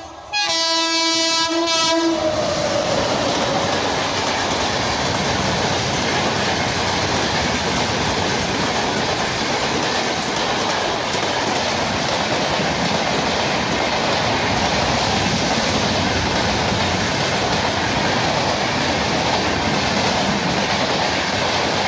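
WAP-7 electric locomotive sounding its horn as it arrives: a short toot, then a longer blast whose pitch drops as the engine passes. After that comes the steady rushing rumble and wheel clatter of a passenger train's coaches going by at speed.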